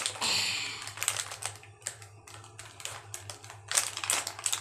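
Irregular clicks and taps of hard plastic being handled while opening a toy figure's packaging, with a brief hiss just after the start.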